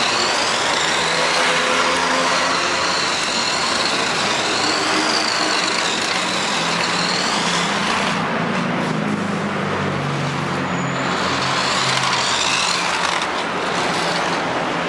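Small electric motor of a 1:24-scale radio-controlled toy car whining, its pitch rising and falling as the car speeds up and slows, over a steady rushing noise. The whine drops away about eight seconds in and comes back faintly near the end.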